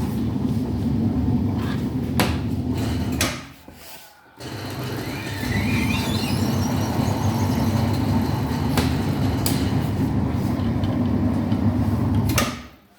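Washing machine on its spin cycle: the drum spins with a steady low hum and a few sharp clicks. The sound drops away briefly about four seconds in and again near the end.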